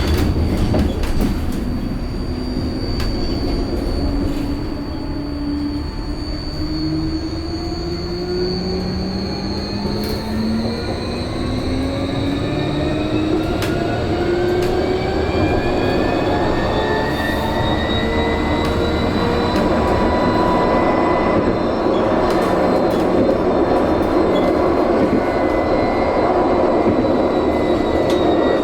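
Vossloh Tramlink tram under way: the electric traction drive's whine climbs in pitch through several tones as it accelerates for most of the first twenty seconds, then holds steady at speed. Steady rumble of wheels on rail runs underneath.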